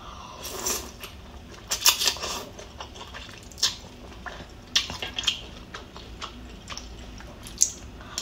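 A person slurping pho rice noodles and broth in several short, loud slurps, the loudest about two seconds in, with a spoon and chopsticks knocking against the bowl.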